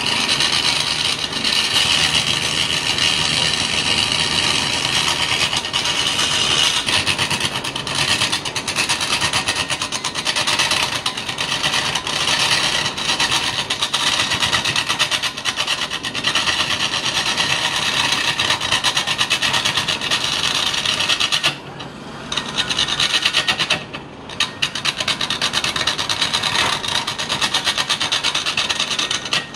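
Turning chisel cutting into a spinning block of wood on a lathe: a steady, rough scraping hiss as shavings peel off, breaking off briefly twice near the end.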